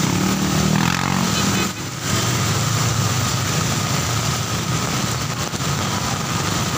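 Heavy rain hissing over motorcycle and car engines running in slow street traffic on a wet road, with a brief dip about two seconds in.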